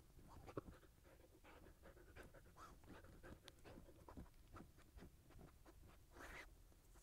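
Faint scraping of a Siberian husky digging in loose ploughed soil with its paws and nose, hunting for a mouse: many small irregular scrapes, with a louder rush about six seconds in.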